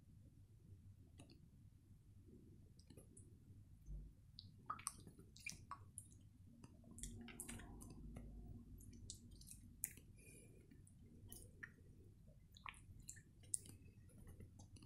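Pink slime being stretched and squeezed by hand, giving faint wet squishes and irregular sticky clicks and pops, most of them from about four seconds in.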